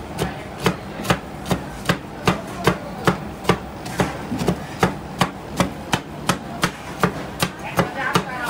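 Metal spatulas chopping Oreo cookies on the steel cold plate of a rolled-ice-cream machine: a steady run of sharp clacks, about two to three a second.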